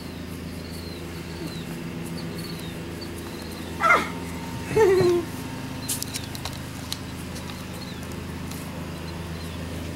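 Boston terrier puppy giving two short yelps about a second apart, near the middle; the second falls in pitch.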